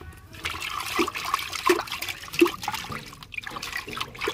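A hand swishes and splashes leafy curry-leaf sprigs through water in a plastic bucket, rinsing them. There is a run of watery sloshing with a few sharper, louder splashes.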